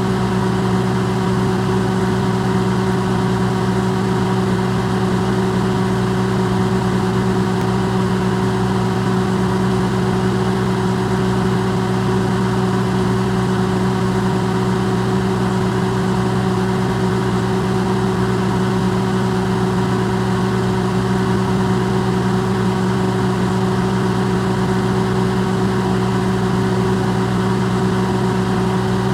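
Electrolux microwave oven running, recorded up close and amplified: a steady, unchanging hum with a low drone and a few fixed higher tones.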